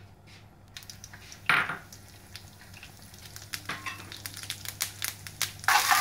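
Mustard seeds, urad dal and fenugreek crackling and popping in hot coconut oil in an aluminium pan, with one brief loud burst about one and a half seconds in. Near the end the oil breaks into a loud, dense sizzle as curry leaves go in.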